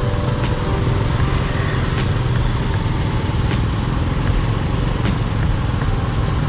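Steady street traffic with small motorbike engines running close by.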